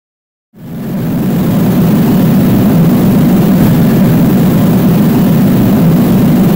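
Steady, loud mechanical roar of shop machinery. It fades in about half a second in and then holds even, with most of its weight low down.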